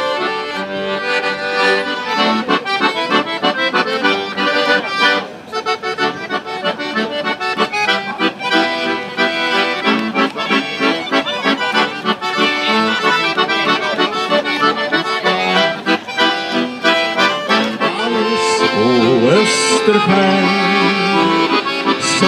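Accordions playing a traditional Swedish folk tune together, continuous and lively.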